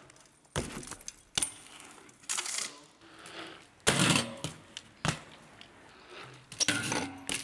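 BMX bike knocking and scraping against a concrete ledge: a series of sharp metallic clanks and knocks from the tyres and frame landing on and rolling off the concrete, with short scrapes, the loudest about four seconds in.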